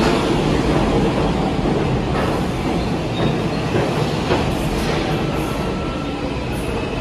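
New York City subway train running past the platform with a steady loud rumble and wheel clatter over the rail joints. A thin high-pitched tone, a wheel squeal or motor whine, comes in near the end.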